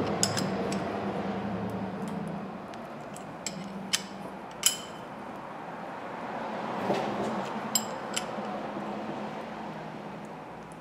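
Scattered sharp metallic clicks and clinks, about half a dozen, from a brake-caliper piston wind-back tool and wrench working against the caliper as the piston is turned back in. Under them is a steady low background noise that slowly fades.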